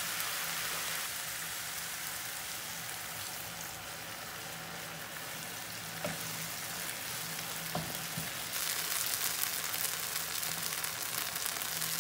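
Chopped mushroom filling frying in oil in a pan, sizzling steadily. Two light knocks come about six and eight seconds in, and the sizzling grows louder from about eight and a half seconds in.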